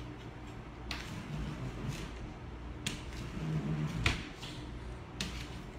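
A handful of short sharp clicks and knocks, about one a second, from a crisp-crusted, freshly baked focaccia being broken and handled.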